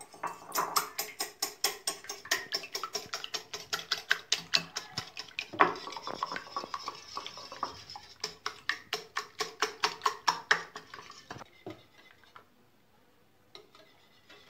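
Wire whisk beating an egg in a glass bowl: quick, even clinking of the metal wires against the glass, about five strokes a second. It stops about eleven seconds in, leaving a few faint taps.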